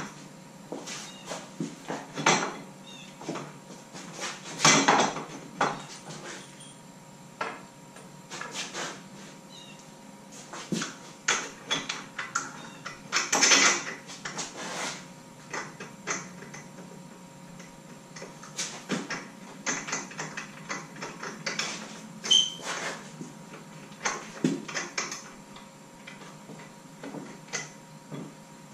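Irregular knocks, clicks and clatter of hand tools and aluminum tube parts being handled at a workbench, with a couple of louder, longer rattles about five and thirteen seconds in.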